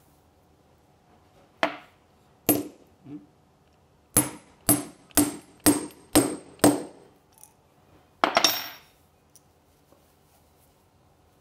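A hammer striking a metal snap-setting punch to set a snap fastener through burlap, each blow a sharp metallic knock with a short ring. Two single blows, then six quick blows about two a second, then one last blow.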